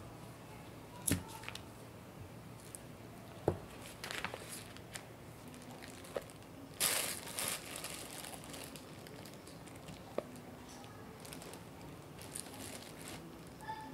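Quiet kitchen handling sounds: the paper under a block of cold butter crinkling as a knife cuts the butter into cubes, then flour spooned into a glass mixing bowl. A few sharp light taps, and a brief rustling hiss about seven seconds in.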